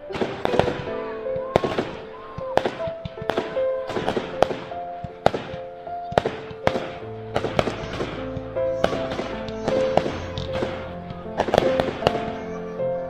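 Fireworks bursting in a rapid, irregular run of sharp bangs, over background music with held notes and a bass line that comes in about seven seconds in.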